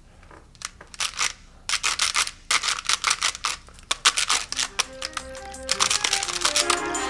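Rapid, irregular clicks and knocks as the keypad of a Datalogic Falcon handheld computer is pounded and pressed hard. Background music with pitched notes comes in about five seconds in.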